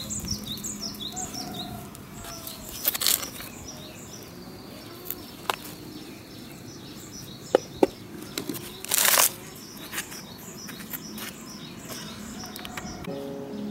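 Small birds chirping, a quick run of short high calls in the first two seconds. Over it, a hand trowel stirs damp potting mix in a metal basin, with a few sharp knocks and a short loud scrape about nine seconds in.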